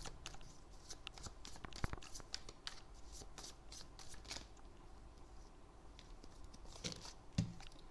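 A deck of tarot cards being shuffled by hand: a run of irregular soft clicks and flicks, with two sharper snaps, one about two seconds in and one near the end.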